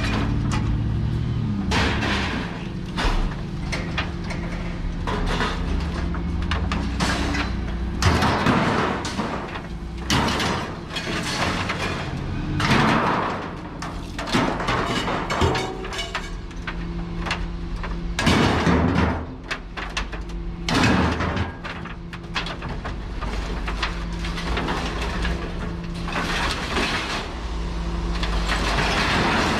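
An engine idling steadily while sheets of steel roofing scrape and clatter, in loud bursts every few seconds with sharp knocks between them.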